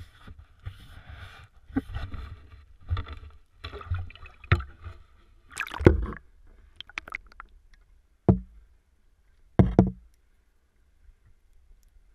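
Landing net plunging into a lake with a loud splash just before six seconds in, after irregular gusts of wind and water noise on the camera housing above the surface. Then a few dull knocks of the submerged net against the camera housing.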